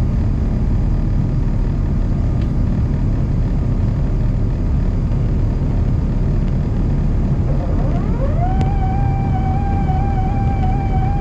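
Steady low rumble of an Airbus A350-900's engines and airflow, heard inside the passenger cabin during the climb after takeoff. About eight seconds in, a whine rises in pitch and then holds one steady tone.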